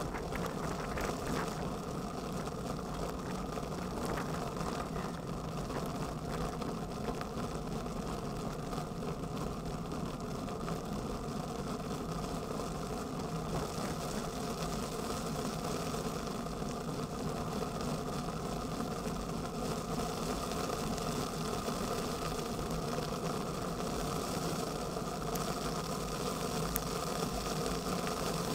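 Steady rumble and rattle of a bicycle rolling over asphalt, picked up through a camera mounted under the handlebar.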